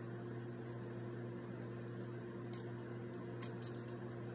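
Garlic cloves being peeled by hand, the papery skin giving a few faint crackles and ticks about two and a half and three and a half seconds in, over a steady low electrical hum.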